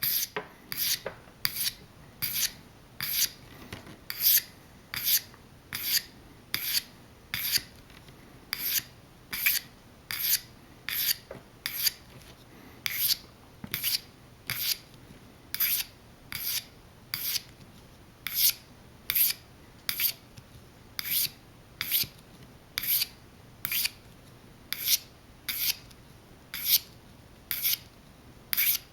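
Steel broadhead blade (VPA Terminator 125) drawn across a diamond hone in short, evenly paced strokes, roughly one a second, each a brief, high, gritty scrape. Sharpening the blade's bevel to a shaving-sharp edge.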